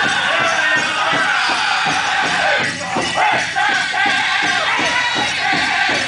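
Powwow drum group singing a Grand Entry song: men singing together over a steady unison drumbeat of about three strokes a second, with the jingling of dancers' bells and crowd noise.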